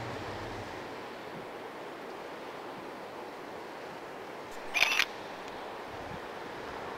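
Steady outdoor hiss of wind and sea along a rocky shore, with a brief high-pitched sound lasting about half a second about five seconds in.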